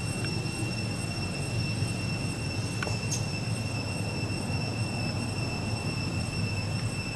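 Steady outdoor background: a constant high-pitched whine with overtones over a low rumble, with a faint tick about three seconds in. No animal calls stand out.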